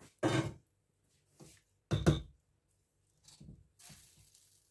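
Two dull knocks about a second and a half apart, a wooden spatula knocking against a large pan, followed by a couple of fainter clicks and light kitchen clatter.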